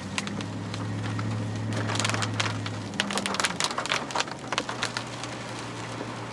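Car running with a steady low hum, its note shifting slightly about three and a half seconds in. Between about two and five seconds in comes a flurry of sharp, irregular taps and crackles, with rain in the storm.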